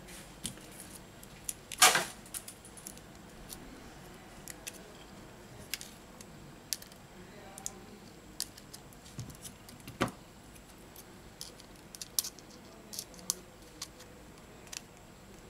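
Small clicks and taps of smartphone parts handled by hand: the display panel, flex cable and metal midframe knocking against each other and the work mat. A short rattle about two seconds in and a sharp knock about ten seconds in are the loudest.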